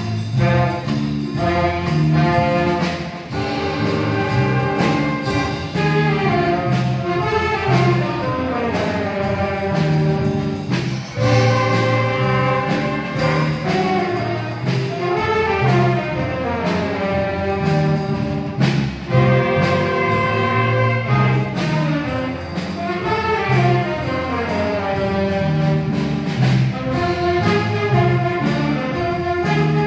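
Student concert band playing live, wind and brass instruments together with a repeating low riff underneath.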